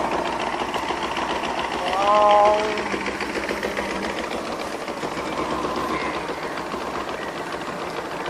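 Outboard motor of a small boat running steadily under way, a fast even engine patter. A short pitched sound rises over it about two seconds in.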